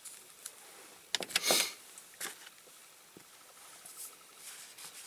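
Small handling noises of a diecast model being reassembled: a few light clicks and a short scraping rustle a little over a second in.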